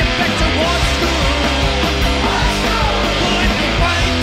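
Punk rock song playing from a vinyl record: a loud, steady wall of distorted electric guitars, bass and drums.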